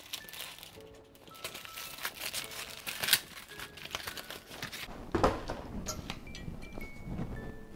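Paper and cardboard packaging crinkling and tearing as a gift parcel is ripped open, with the loudest rustles about three and five seconds in, over soft background music.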